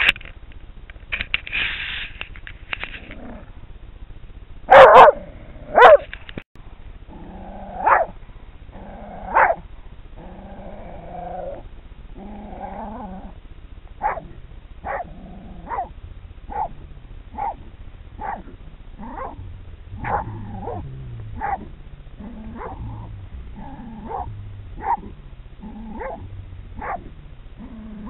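A hunting terrier barking at a raccoon dog cornered in its earth den, baying it. Two very loud barks come about five seconds in, then steady barks about once a second through the second half.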